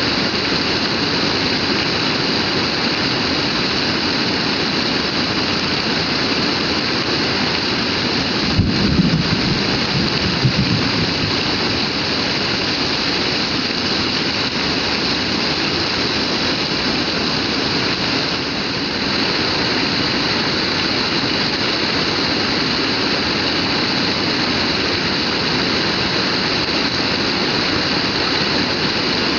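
Heavy rain pouring steadily, a dense even hiss, with a brief low rumble about nine seconds in.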